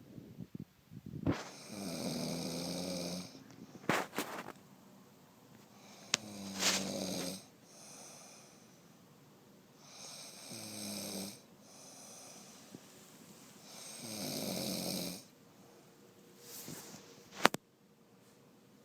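A woman snoring heavily: four long snores about four seconds apart, each a low hum with a breathy hiss. A few sharp clicks fall between the snores, the loudest one near the end.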